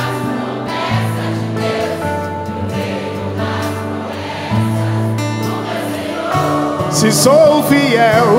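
Live worship band with electric and acoustic guitars playing a Christian worship song, with many voices singing along; a lead voice comes in more strongly near the end.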